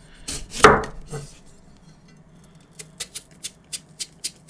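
A knife cutting into a papaya melon: a few sharp cuts, the loudest under a second in, then from about three seconds in a run of short crisp taps, about three a second, as the blade goes through the fruit.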